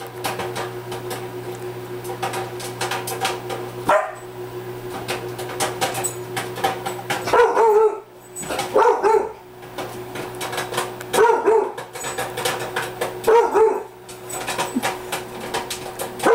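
Popcorn popping in a running microwave, a quick stream of sharp pops over the oven's steady hum. A rottweiler barks at the popping in short bursts, about every two seconds in the second half, because it feels threatened by the pops.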